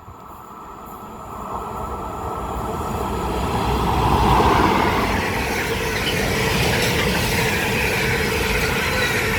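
Train approaching and running past at close range: the rumble grows louder over the first four seconds or so, then holds steady.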